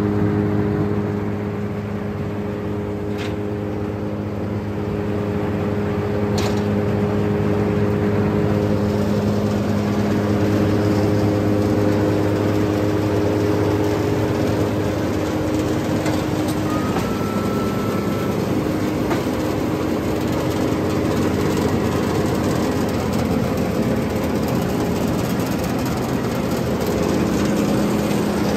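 Bandit 12XPC chipper's engine running steadily at a constant speed: an even mechanical hum with several steady low tones. There are two light clicks early on and a short high whistle about two-thirds of the way in.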